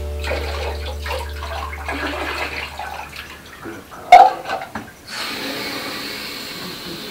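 Water splashing and dripping as a soaked cat is lifted out of a plastic bath tub, with one sharp loud knock about four seconds in. About five seconds in, water starts running steadily from the shower tap.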